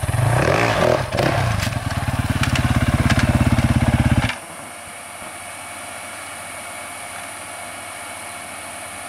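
Kove 450 Rally's single-cylinder engine running as the bike is ridden on a trail, with its pitch rising and falling under the throttle in the first second and a fast even pulsing after. The engine sound cuts off abruptly about four seconds in, leaving a faint steady hum.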